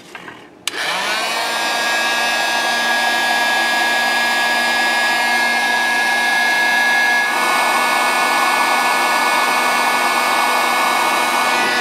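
Electric heat gun switched on about a second in, its fan motor spinning up to a steady whine as it blows hot air to shrink a heat-shrink butt connector on a truck's tail-light wiring. The sound changes partway through, about seven seconds in.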